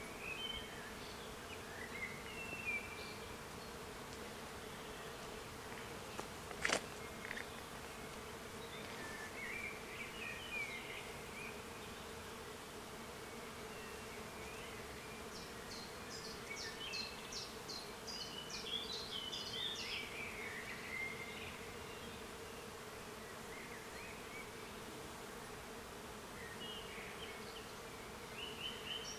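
A steady buzzing hum, with birds chirping on and off and one sharp click about seven seconds in.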